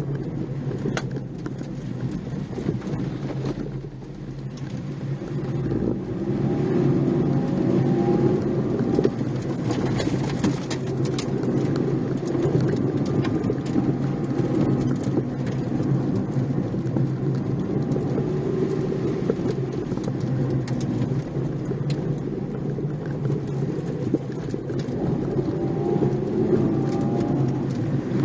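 Nissan March 12SR's 1.2-litre four-cylinder engine and tyre noise heard from inside the cabin while driving, with the revs climbing about six seconds in and again near the end.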